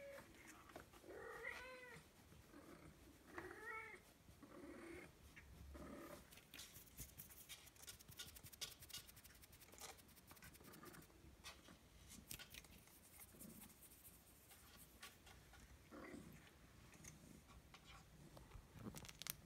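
Ragdoll kitten mewing: several short, high, arching mews in the first few seconds, followed by faint rustling and light clicks.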